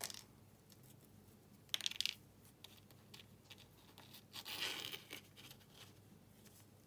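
Small metal parts clinking briefly about two seconds in, then a rustling, scraping burst near the five-second mark as gloved hands fit the float bowl and its screws onto a pocket bike carburetor.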